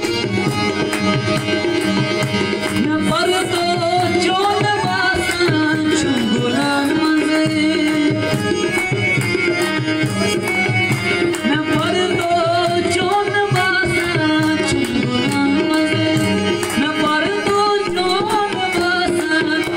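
Folk dance music: fast, steady drumming under a wavering, gliding melody line.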